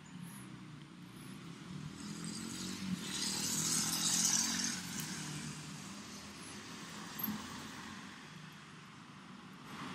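A road vehicle passing nearby: its tyre and engine noise swells to a peak about four seconds in and then fades, over a low, steady hum of traffic.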